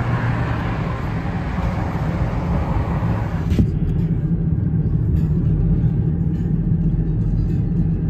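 Steady low engine rumble with outdoor noise over it. About three and a half seconds in, the outside noise cuts off abruptly with a small knock, leaving the low rumble muffled.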